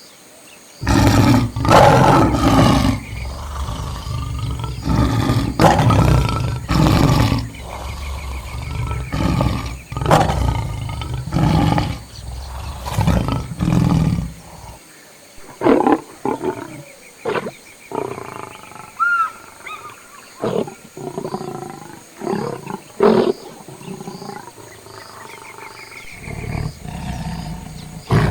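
Lions roaring and growling in a run of loud calls, closely packed through the first half, then shorter separate calls later on.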